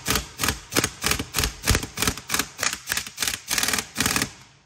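Blue-Point impact wrench hammering on the hub nut, pulsing about four times a second, drawing a new front wheel bearing onto a Ford Transit Mk7 stub axle; it stops shortly before the end.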